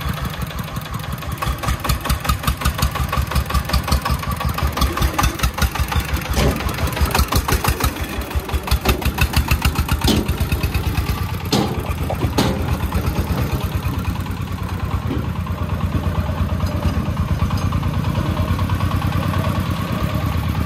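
Công nông three-wheeled dump truck's 24-horsepower single-cylinder diesel engine running with a fast, even chugging beat as the truck pulls away. A few sharp metallic clanks come about halfway through.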